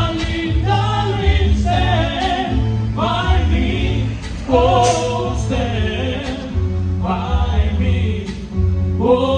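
Live singing with band accompaniment played through PA speakers, a heavy bass line under the voices.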